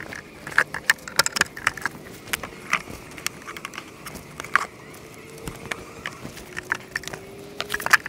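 Wooden hive frames and a metal hive tool knocking and clicking against a wooden beehive box, many sharp irregular clicks, with honey bees buzzing faintly.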